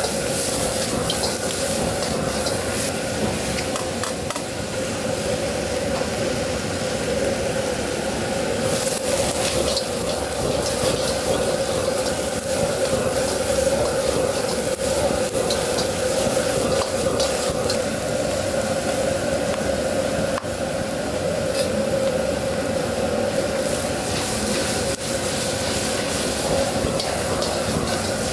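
Squid, clams and vegetables sizzling in a wok over a high-heat gas wok burner, stirred with a metal ladle that scrapes and clinks against the pan now and then. A steady drone from the wok range runs underneath, and the sizzling swells twice.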